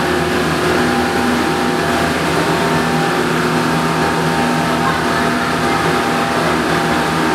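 Gondola station machinery running, carrying a cabin slowly around the terminal's turnaround rail: a steady mechanical hum with several held tones.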